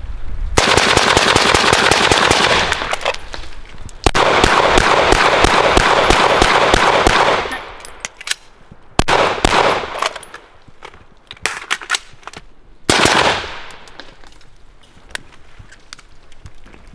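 Rapid strings of gunshots from an AR-15-style rifle, echoing, for about seven seconds with a brief break about four seconds in. After that come scattered single shots, with a louder one about thirteen seconds in.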